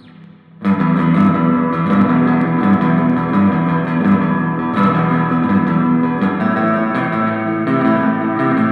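Background music led by guitar, kicking in suddenly just under a second in and running on at an even loudness.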